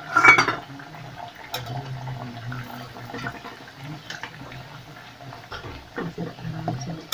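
Kachoris deep-frying in a kadhai of oil over a low gas flame: steady fine sizzling and bubbling with small crackles, and a brief louder burst just at the start. A long metal slotted spoon moves and turns them in the oil.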